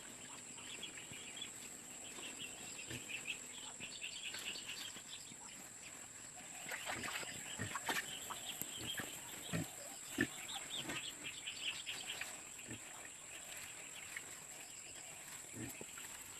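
Pigs in a pen grunting and squealing on and off, busier from about seven seconds in.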